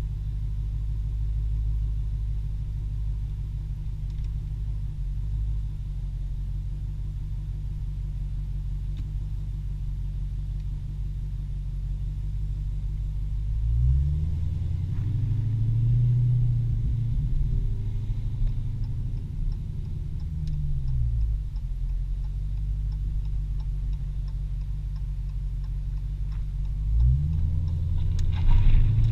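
Dodge Challenger SRT Hellcat's supercharged 6.2-litre HEMI V8 idling with a steady low rumble, heard from inside the cabin. About halfway through it revs up, holds for a few seconds and drops back, then revs up again near the end as the car drives off.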